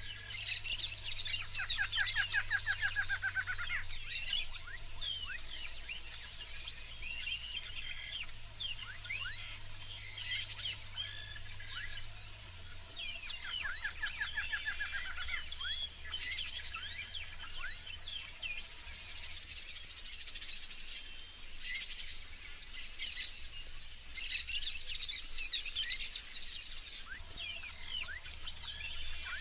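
Yellow-rumped marshbirds calling: a busy chatter of many short high chirps and whistles, with a rapid rattling series of quick repeated notes about a second in, again about halfway through, and once more at the very end.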